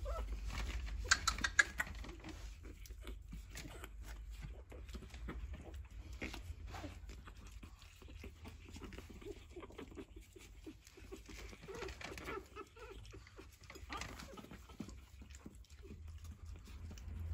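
Pug puppies' paws pattering and scrabbling on a wooden parquet floor in many small clicks, with a few short high puppy squeaks about a second in.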